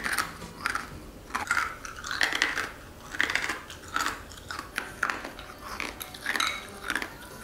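Someone chewing frozen coffee ice cubes: a string of short crunches, about one to two a second.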